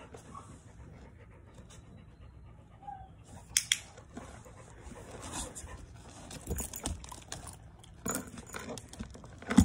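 A large dog panting, with metal collar tags and leash hardware jingling and a few sharp clinks, the loudest about three and a half seconds in and right at the end.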